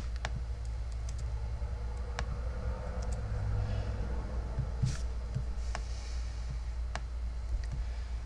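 Computer mouse clicking: several single sharp clicks at irregular intervals, over a steady low electrical hum.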